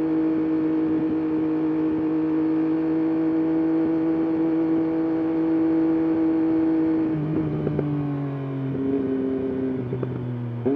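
Triumph Daytona Moto2 765 three-cylinder engine and exhaust holding a steady note, then, about seven seconds in, the pitch drops in a few steps as the bike slows.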